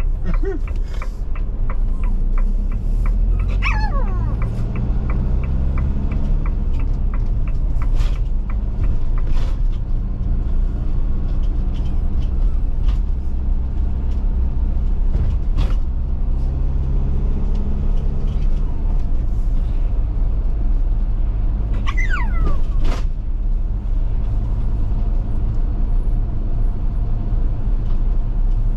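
Steady low engine and road rumble inside a moving motorhome cab. A regular indicator ticks for the first few seconds, and a dog whines briefly twice, at about four seconds and again past twenty seconds.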